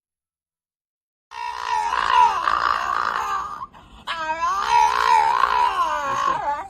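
A dog howling: two long wavering howls, the first starting about a second in and the second about four seconds in.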